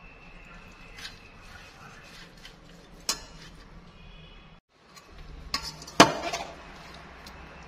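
Wooden chopsticks knocking against a stainless steel mixing bowl as salad is scooped out: a few sharp clinks, the loudest about six seconds in, ringing briefly.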